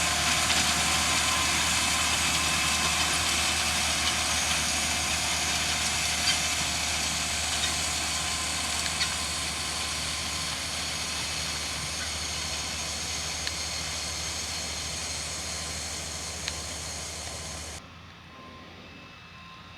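John Deere tractor running steadily under a broad hiss of field machinery noise, slowly growing fainter as it moves off, then cut off sharply near the end.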